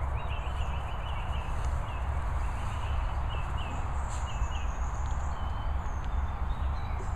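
Wind rumbling over the microphone, with small birds chirping repeatedly in the background.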